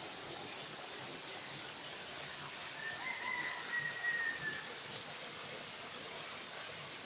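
Steady hiss of a thin waterfall splashing into a pool, with one long pitched call from a bird about three seconds in, lasting nearly two seconds.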